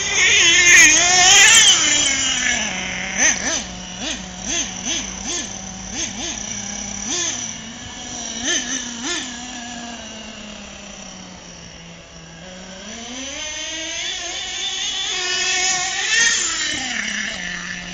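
HPI Savage X 4.6 nitro RC monster truck's small two-stroke glow engine, revving high at first. It then gives a quick string of about ten short throttle blips and settles to idle, before climbing in a long rev near the end and dropping back.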